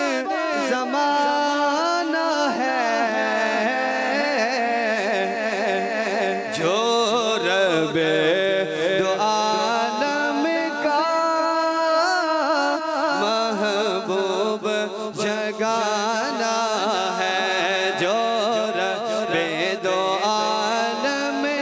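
A man singing a naat into a microphone, drawing out long unbroken melodic phrases whose pitch slides and wavers, with no clear words.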